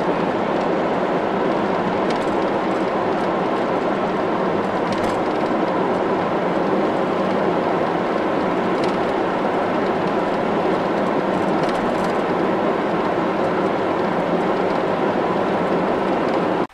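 Steady road noise inside a moving car's cabin: tyre and wind noise at cruising speed, loud and even, with a few faint clicks.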